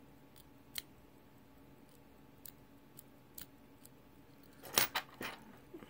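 Small sharp clicks from handling a Waltham pocket watch's crown and stem: a few single clicks spread out, then a quick run of clicks near the end as the crown is worked.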